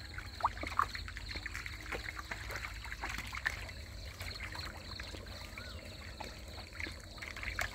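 Faint trickling and small splashes of shallow water in the mud of a drained pond, with scattered small clicks, over a steady low rumble.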